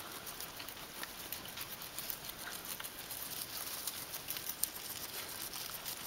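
Guinea pigs chewing leafy greens and shuffling in hay: a steady stream of small, irregular clicks and rustles.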